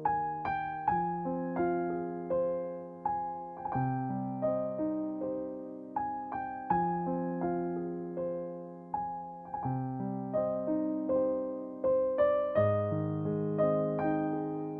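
Background music: a solo piano piece, notes and chords struck one after another and left to fade.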